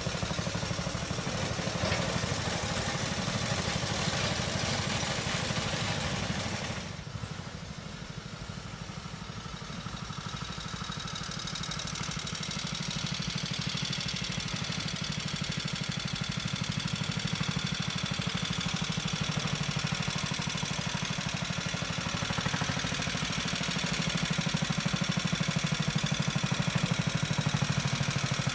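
The JAP two-cylinder petrol engine of a Road Machines contractor's monorail running steadily. After a sudden drop about seven seconds in, it is fainter, then grows gradually louder toward the end.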